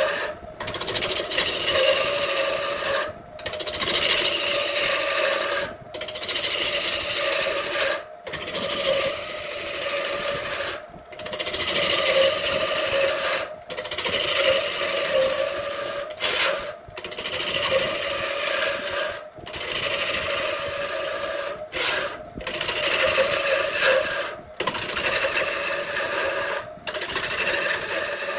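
Wood lathe spinning a large wooden blank while a hand-held gouge cuts into it: a steady hum with rough scraping of the tool on the wood. The noise comes in passes of a few seconds, broken by brief gaps.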